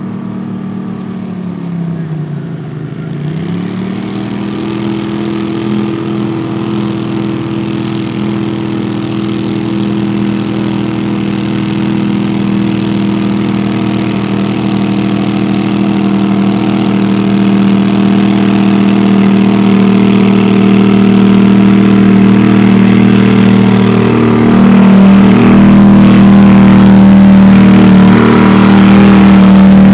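Garden tractor engine running at steady high revs, getting steadily louder. Its pitch drops and climbs back about two to three seconds in.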